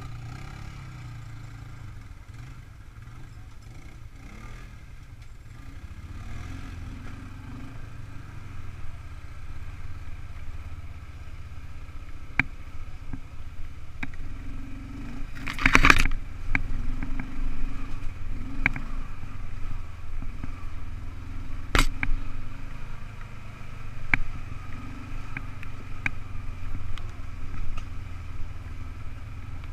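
ATV engine running at low trail speed, growing louder after the first several seconds, with the machine's rack and body knocking and rattling as it bumps over brush and logs; the loudest knock comes about halfway through.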